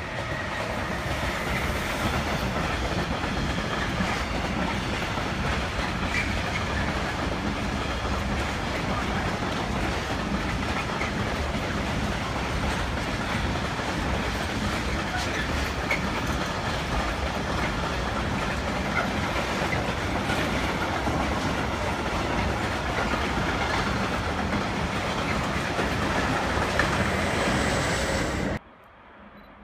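A train running on the rails, a dense steady rumble that cuts off abruptly about a second before the end.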